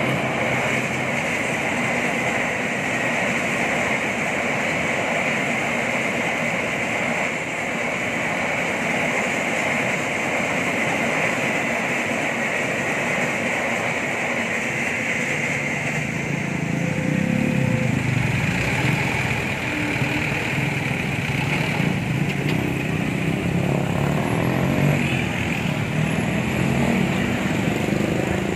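Motorcycle engines idling in a queue at a railway level crossing, under a steady high-pitched ringing from the crossing's warning bell. From a little past the halfway point heavier engine sound builds as the vehicles, including a loaded dump truck, start to move across.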